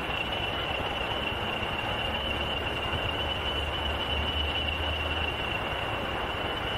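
English Electric Class 40 diesel locomotive running, a steady engine drone with a constant high whine over it. A low rumble swells through the middle and eases off.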